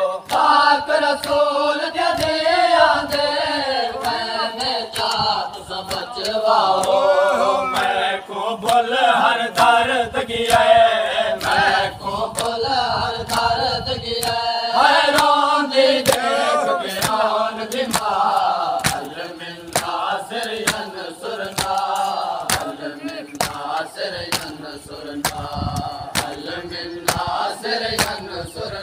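Group of men chanting a Shia nauha (Muharram mourning lament) in unison, with sharp rhythmic slaps of hands beating on their chests (matam) keeping time.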